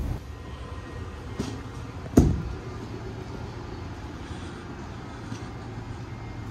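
Railway platform ambience beside a standing train: a steady low hum, with a faint click and then a single sharp knock about two seconds in.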